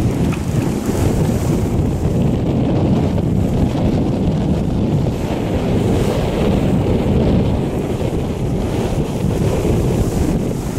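Strong wind buffeting the microphone on a sailing yacht at sea, a steady low rumble, with the rush of waves beneath it.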